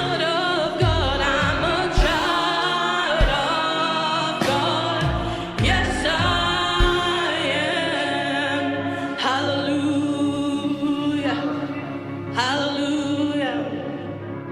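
Gospel praise singing: voices singing over live band accompaniment, with drum hits in the first half.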